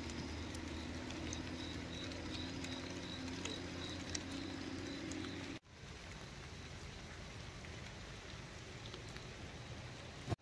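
Steady rain falling. For the first half a steady low hum and faint high insect chirping sit under the rain, then the sound cuts abruptly to the rain alone, a little quieter.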